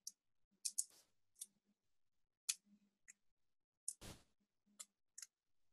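Faint clicking over a video-call connection: about a dozen short, sharp clicks at uneven intervals, with a brief rustle about four seconds in.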